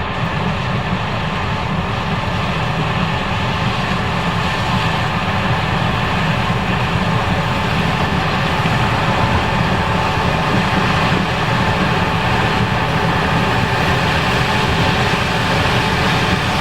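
Case IH 5140 Axial-Flow combine running steadily, a constant loud engine and machinery drone with no change in pace.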